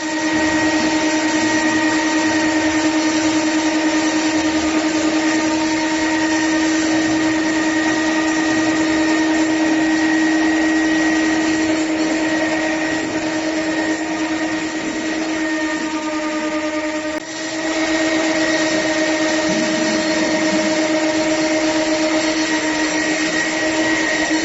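Concrete floor grinder running steadily: a constant motor hum over a dense grinding noise, with a brief drop about 17 seconds in.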